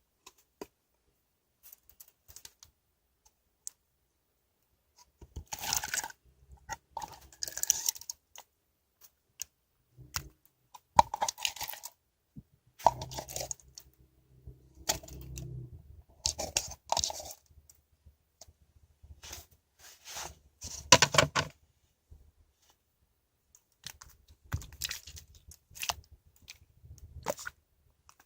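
Hands working slime: crackly, clicky squishing and popping in irregular bursts with short silent pauses between them.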